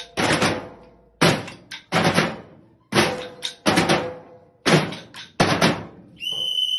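Makeshift drums, sticks beating on cardboard boxes and a plastic tub, played together in a repeating rhythm of grouped hits about once a second. Near the end the beating stops and a high, steady whistle tone sounds.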